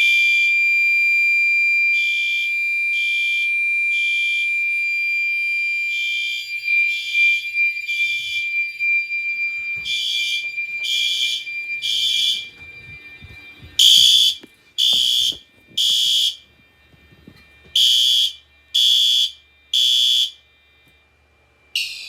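Fire alarm horns, a System Sensor SpectrAlert Advanced and a Gentex Commander 2, sounding in the temporal-three evacuation pattern: three short blasts, then a pause, repeating. Under the blasts runs a steady high-pitched tone that drops away about nine seconds in. The last groups of blasts are the loudest.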